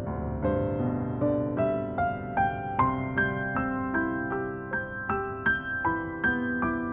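Background music: a slow piano melody of single notes struck about two or three times a second, each fading out before the next.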